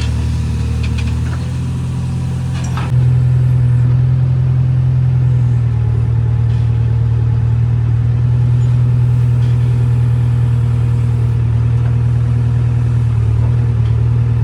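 A JCB 3DX backhoe loader's diesel engine running with a steady low drone that steps up louder about three seconds in and holds there.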